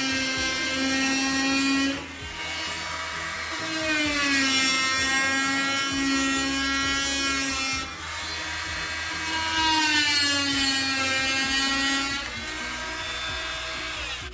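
FastCraft 2.4 amp oscillating multi-tool with a wood blade, running a steady high buzz while cutting into wood. Its pitch and level drop three times as the blade bears into the cut, then pick back up.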